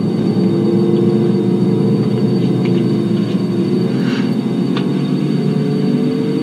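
Low, ominous dramatic background music: a dense drone of sustained tones that shift slowly in pitch.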